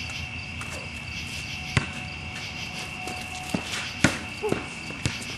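A basketball bouncing on an outdoor court: one sharp knock about two seconds in, then a cluster of bounces from three and a half to five seconds in, the loudest just after four seconds. Crickets trill steadily throughout.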